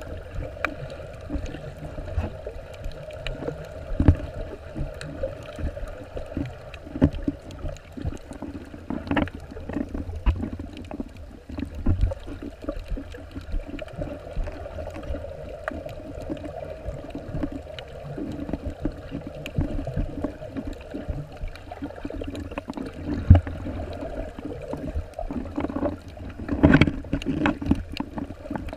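Underwater sound picked up by a submerged camera: a continuous muffled water rush and gurgle, broken by irregular knocks and clicks, with a louder cluster of knocks near the end.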